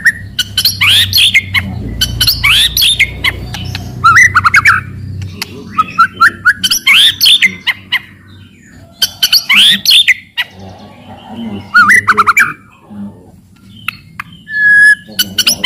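White-rumped shama giving loud, harsh rattling 'cetrekan' calls in short repeated bursts, mixed with quick rising and falling whistled notes: the aggressive chatter that is used to provoke rival shamas.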